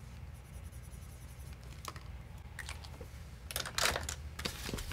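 Quiet desk handling sounds: a marker scribbling on a paper savings chart, then a few light clicks and paper rustles, the loudest about three and a half seconds in.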